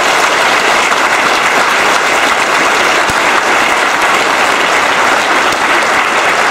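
A large audience applauding steadily: dense, sustained hand clapping from a packed auditorium.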